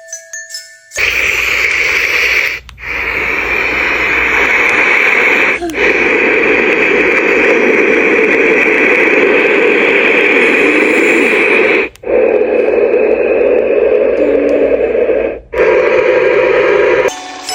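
Babelio pocket mini white noise machine playing steady noise sounds. It changes track several times, each change marked by a brief cut-out, and the tone of the noise shifts a little from one track to the next. Chiming mallet music is heard briefly before the noise starts and again at the end.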